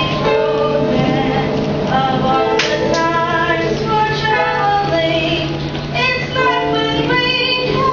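A young female singer sings a slow, sad stage-musical song with musical accompaniment, holding long notes as the melody steps up and down.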